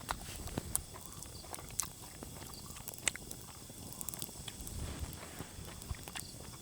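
Quiet, irregular clicks and soft taps of people eating, chewing and handling food and plates, a few scattered sharp ticks among them.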